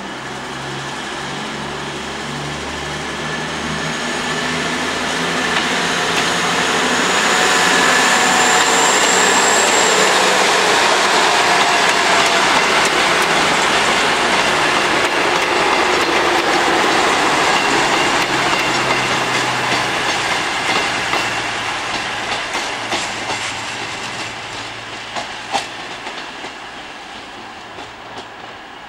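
Virgin Voyager diesel multiple unit passing on the rails, its underfloor diesel engines and wheels growing louder to a steady peak and then fading as it draws away. Near the end come a run of wheel clicks over rail joints, one of them sharp.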